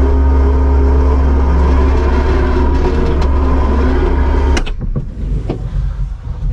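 Kubota SVL75-2 skid steer's diesel engine running steadily, then stopping abruptly about four and a half seconds in, followed by a few knocks.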